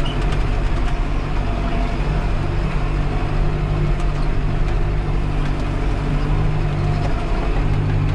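Tractor engine running steadily under load while pulling a disc harrow through dry, cloddy ploughed ground, heard from inside the cab, with a few faint clicks.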